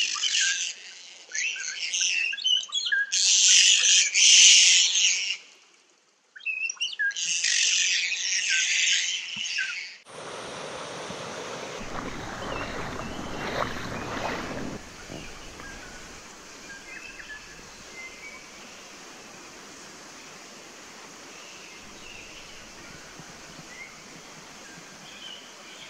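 A flock of kaka calling loudly in flight, dense overlapping screeches, with a brief break a little before halfway. About ten seconds in it cuts to splashing as a foot wades through a shallow stream, which gives way to a steady hiss of running water with faint bird chirps.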